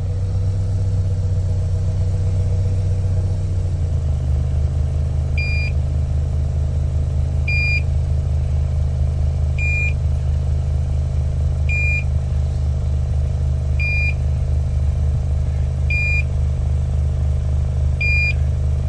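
Subaru engine idling with a steady low exhaust hum that drops to a lower pitch about four seconds in. From about five seconds in, a carbon monoxide meter gives a short high alarm beep about every two seconds, the sign of CO in the exhaust.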